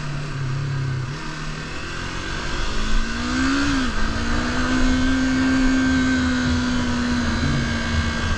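Motorcycle engine under way: its note rises about three seconds in, dips briefly, then holds steady at cruising revs. Wind rushes over the helmet-mounted microphone throughout.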